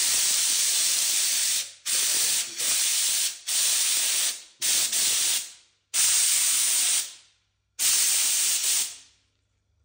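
Bieffe Farinelli steam cleaner's gun blasting jets of steam, hissing loudly in about eight short bursts, each starting sharply and tailing off.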